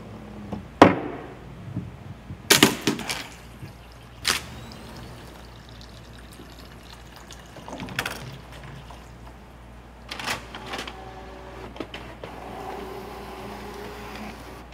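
Parts of a home-built Rube Goldberg chain-reaction machine knocking and clattering as they set each other off: a string of separate knocks, the sharpest about a second in, with a quick cluster of clatters soon after. A faint steady whir sounds near the end.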